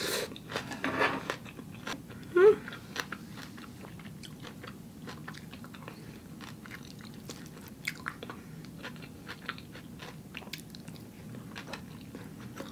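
Close-miked mouth sounds of a person eating: wet chewing with many small clicks and smacks, and a brief hum of voice about two and a half seconds in.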